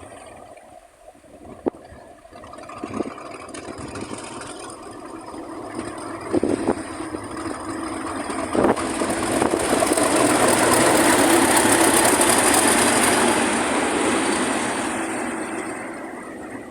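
A pair of British Rail Class 50 diesel locomotives, English Electric 16-cylinder engines, running through the station. The engine and wheel noise swells over several seconds, is loudest about ten to fourteen seconds in with a steady high whine on top, then fades away. A few sharp knocks come in the first few seconds.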